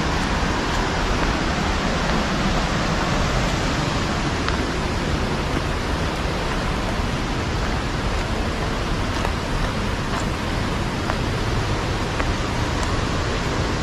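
Steady rush of falling and flowing water from Whangarei Falls and its river: an even hiss that holds level without a break.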